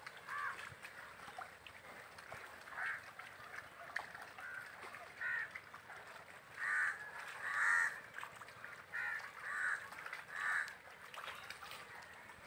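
Birds calling: a series of short calls repeated every second or two.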